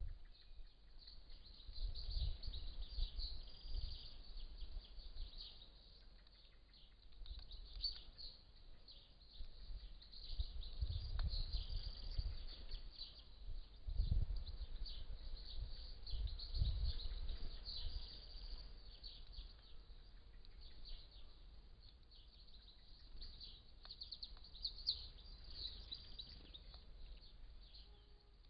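Garden birds chirping and twittering continuously in a high, busy chatter, with several swells of low rumble underneath.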